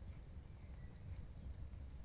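Fireplace fire burning: a steady low rumble of flames with a few faint crackles.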